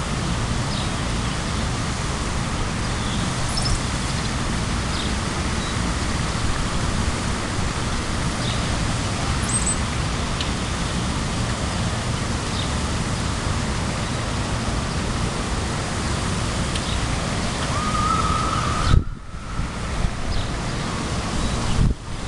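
Steady wind buffeting the microphone outdoors, with a few faint bird chirps over it. The noise dips sharply about nineteen seconds in, then comes back unevenly.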